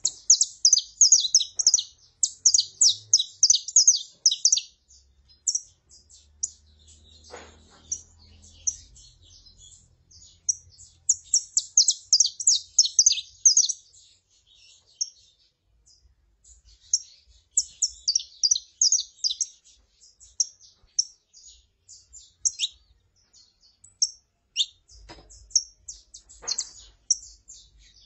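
Saffron finches, a female calling and a male singing: rapid runs of high chirping notes in bursts of a few seconds, broken by short pauses.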